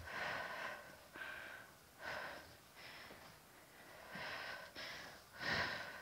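A woman's hard breathing from exercise, short sharp breaths about once a second, close to a clip-on microphone.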